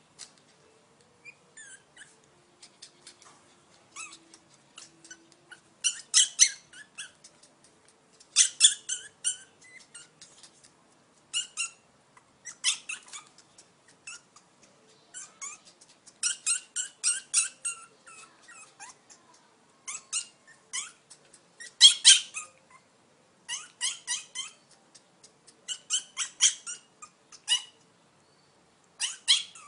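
Small pets squabbling, giving rapid high-pitched squeaks and chatters in repeated short bursts every second or two.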